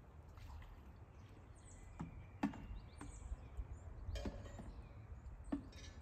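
Outdoor ambience: a steady low rumble with a few sharp clicks or knocks, the loudest about two and a half seconds in and again near the end, and faint high chirps of birds.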